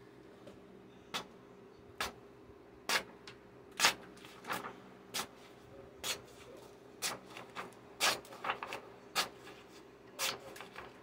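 A sharp sword blade slicing through a hand-held sheet of paper: a series of short, crisp cuts, about one a second, coming faster around eight seconds in.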